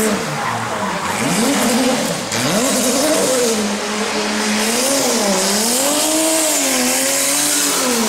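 Drift car engine revving up and down repeatedly as the car slides through the course, with tyres squealing and hissing.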